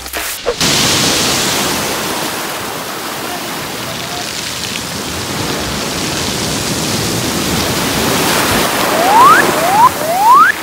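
Steady rushing of heavy surf breaking on the shore. Near the end, three short rising whistle-like sounds cut in over it, louder than the surf.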